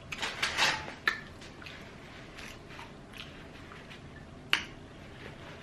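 Close-mic eating: a bite with a crackly crunch in the first second, then quiet chewing with a few sharp mouth clicks, one about a second in and one near the end.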